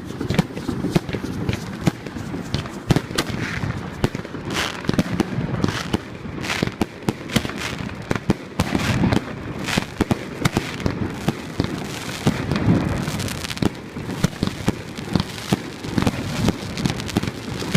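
Fireworks going off in a dense, irregular barrage: many overlapping bangs and cracks with a continuous rumble beneath.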